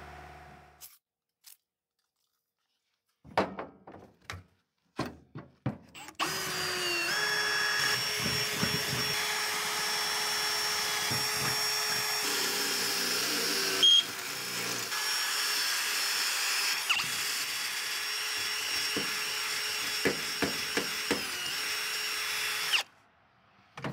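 Milwaukee M18 cordless drill boring a bolt hole through the steel diamond-plate truck bed, running at a steady high whine for about seventeen seconds and then stopping suddenly. A few short knocks come before it starts, and a sharp click about fourteen seconds in.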